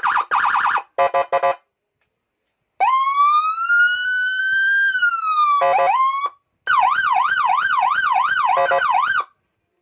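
Custom police-escort siren (45-watt module driving a 25-watt speaker) switched through its tones: choppy short bursts, then a long wail rising slowly and falling, more short blips with a quick upsweep, and a fast yelp going up and down about three times a second before it cuts off near the end.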